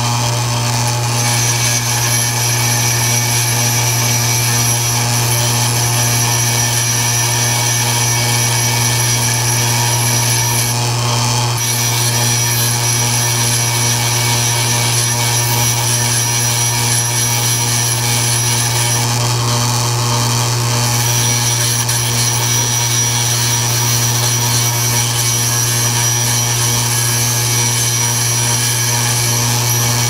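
Delta 8-inch bench grinder running at full speed with a steady hum, while a small chrome-plated metal part is ground against the spinning wheel, adding a continuous hissing grind.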